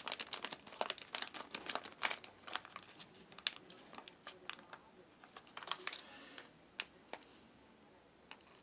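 Small foil packet of strawberry jam crinkling in the hands, a dense run of crackles for about the first three seconds, then a few scattered crinkles as the packet is squeezed out.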